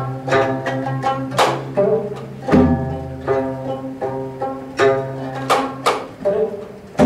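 Korean traditional instrumental ensemble playing: sharply plucked zither notes from the gayageum and geomungo ring out over sustained low bowed tones, with a few strong plucked accents standing out.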